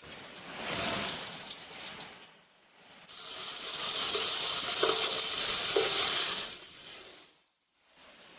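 Whole spices, cloves among them, sizzling in hot oil in a large aluminium pot: a steady frying hiss for about four seconds that then cuts off. Before it, a shorter stretch of noise as cooked rice is stirred with a wooden spatula in a pot.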